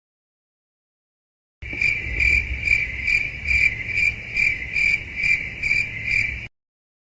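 Crickets chirping, the stock "awkward silence" meme sound effect: a high trill pulsing a little over twice a second over a low rumble. It starts about a second and a half in and cuts off sharply about five seconds later.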